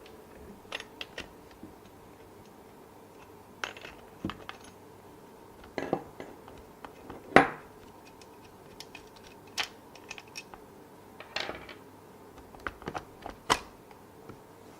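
Irregular metallic clicks and clinks as a combination wrench works the two nuts off a chainsaw's bar side cover and the nuts and cover are handled, with the sharpest clink about seven and a half seconds in.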